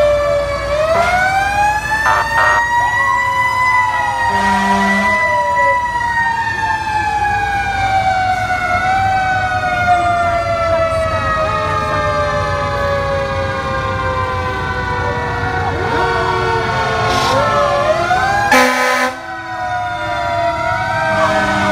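Fire truck sirens wailing as the trucks pass. One siren winds up and then slowly coasts down in pitch for many seconds, and another winds up again near the end. Several air horn blasts cut in, with the longest about 4.5 and 18.5 seconds in, over the rumble of the trucks' diesel engines.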